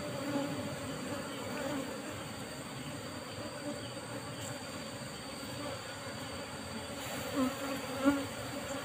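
Asian honey bees (Apis cerana) buzzing steadily in a swarm as their wild colony's combs are pulled out of the rock nest.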